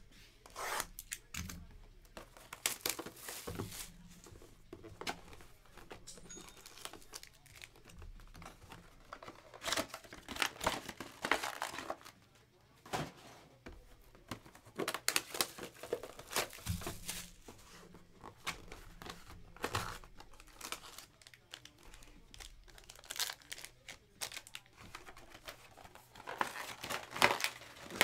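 Plastic shrink wrap being slit, torn and peeled off sealed trading-card boxes, crinkling and tearing in irregular bursts.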